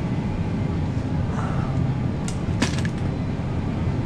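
Electric mobility scooter driving along a smooth store floor: a steady low motor and wheel rumble, with a few brief clicks about two and a half seconds in.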